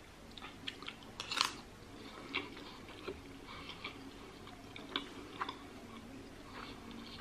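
A person chewing a mouthful of rice, onions and chili pepper with lips closed: soft clicks and smacks scattered through, with a louder one about a second and a half in.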